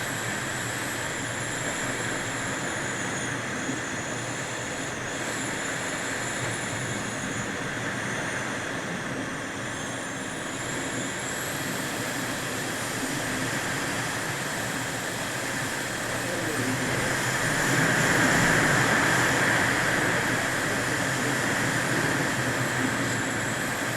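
Typhoon Hagibis storm wind blowing in a steady rushing noise, swelling louder in a gust about two-thirds of the way through.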